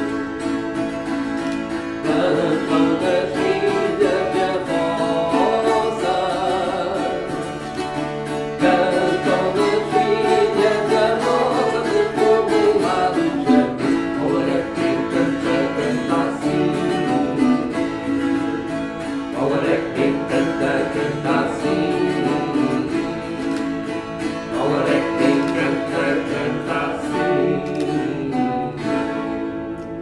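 Two violas campaniças, Portuguese wire-strung folk guitars, played together, with a man's voice singing a moda over them in separate phrases. The music dies away near the end.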